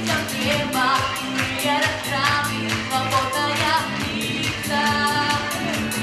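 A girl singing a pop song into a handheld microphone over a backing track with a steady drum beat.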